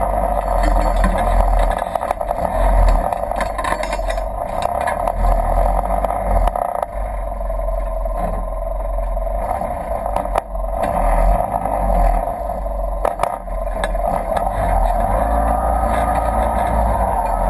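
Polaris RZR 1000 side-by-side's engine running steadily at low speed as it crawls along a creek bed. Scattered knocks come through as the tyres go over rocks.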